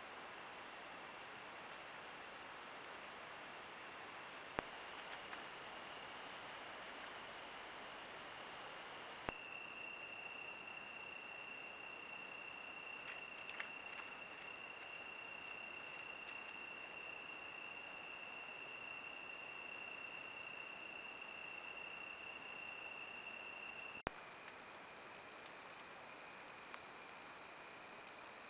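Steady high-pitched chorus of crickets and other insects over the hiss of a trail camera's microphone, with a sharp click at each of three cuts between clips.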